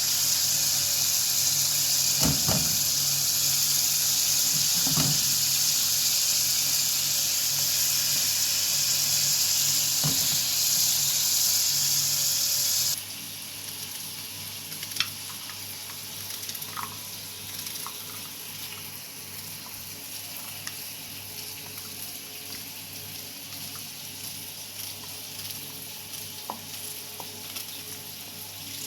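Food sizzling as it fries in oil, an even hiss. About halfway through it drops suddenly to a quieter sizzle with scattered small crackles and pops.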